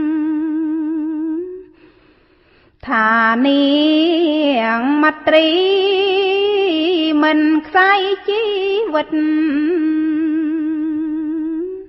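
A woman's voice chanting Khmer smot, Buddhist verse recitation, unaccompanied: long held notes with a wide, wavering vibrato. She breaks off for about a second near two seconds in, then resumes with a more ornamented, moving line.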